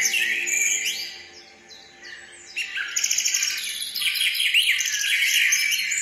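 Small birds chirping and twittering, thinning out a second or two in, then fast, busy trills from about halfway on.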